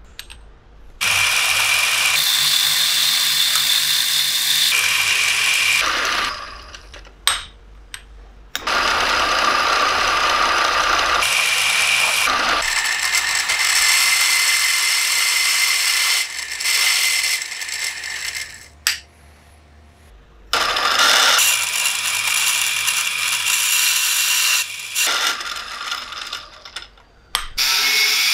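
A power tool working metal, running in several stretches of a few seconds each with short pauses between, a steady whine over a loud hiss.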